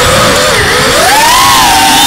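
Racing quadcopter's DYS 2205 2300kv brushless motors whining on a 4S battery, the pitch dipping about half a second in and climbing back as the throttle changes, over a rough rushing noise.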